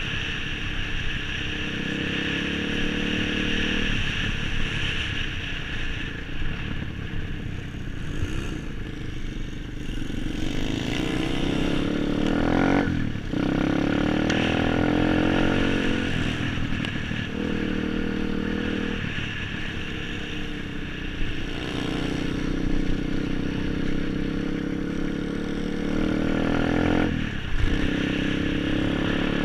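Pit bike's single-cylinder four-stroke engine under way, revving up and down as the rider works the throttle, with a brief throttle cut about halfway through and another near the end.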